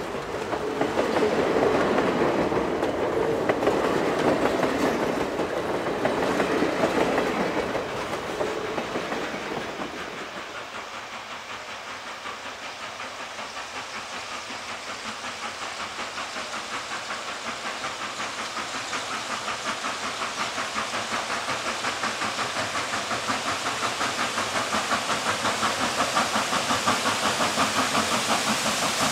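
Passenger cars of a train rolling past close by, wheels clattering over the rail joints. About ten seconds in the sound drops back, and the rhythmic exhaust chuff of Reading T-1 4-8-4 steam locomotive No. 2102 grows steadily louder as it approaches.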